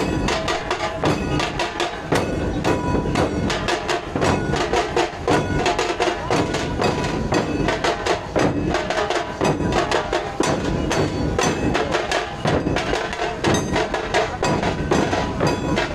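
Large barrel drums (dhol) of a street drum troupe beaten together with sticks: a fast, dense, steady rhythm of sharp, hard strokes.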